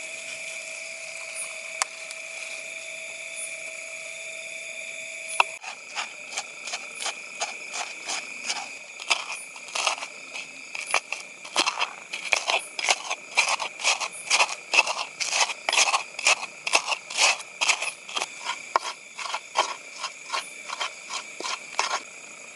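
Steady high-pitched drone of night insects, joined about five seconds in by a quick, irregular run of scraping, rattling clicks, two or three a second.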